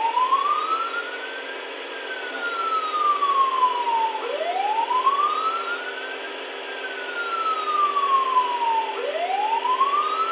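Huina 1561 toy RC fire truck's built-in siren sound effect playing through its small speaker: a slow wail that rises then falls, about one sweep every four and a half seconds, over a steady tone.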